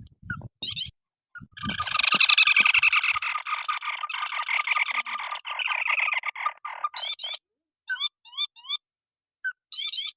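Rice-field rails calling: a loud, fast run of harsh repeated notes lasting about six seconds, then short rising call notes repeated in small groups. A few low knocks come in the first two seconds.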